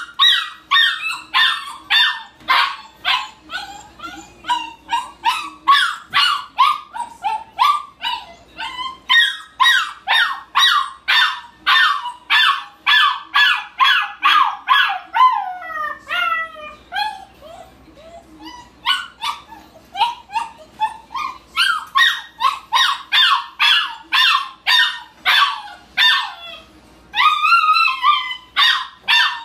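A puppy yapping on and on like a car alarm, about three high-pitched yips a second, each dropping in pitch. About sixteen seconds in it breaks into a run of falling whines, and near the end it gives a longer rising howl.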